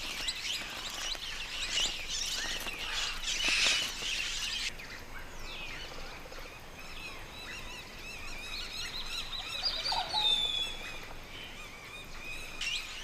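A flock of parrots, mealy parrots and rose-crowned parakeets, calling and chattering over one another. The calls are dense for the first few seconds, then thin to scattered calls, with one falling whistle late on.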